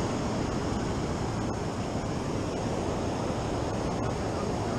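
Steady rush of ocean surf on a sandy beach, with wind noise on the microphone.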